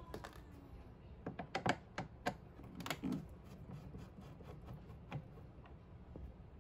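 A screwdriver clicking and tapping against a screw set in a removed car dashboard's plastic frame as the screw is worked loose: a run of sharp clicks about a second in, then fainter ticks.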